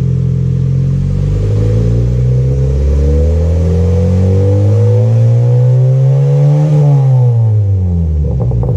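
Honda City Aspire 1.5 i-VTEC four-cylinder engine through an HKS straight-pipe exhaust, revved slowly once from idle: the pitch climbs steadily for about five seconds, peaks, then drops back to idle near the end.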